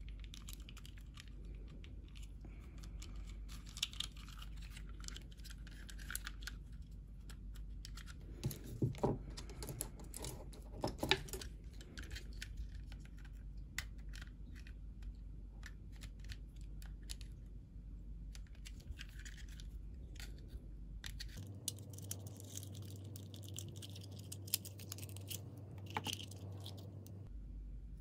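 Small plastic clicks, scratches and rustles as a pick and fingers work switches loose from a Mercedes power seat switch housing, with a few sharper clicks near the middle.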